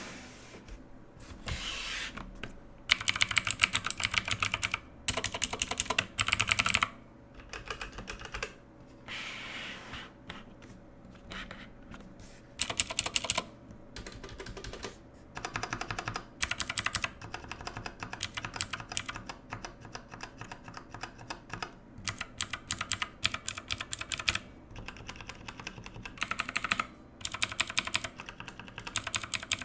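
Typing on a Redragon K550 Yama mechanical keyboard: fast runs of key clicks in bursts of a second or two, with short pauses between them.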